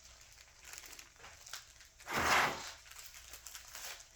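Plastic packaging crinkling as a kit's parts are handled, with one louder rustle about two seconds in.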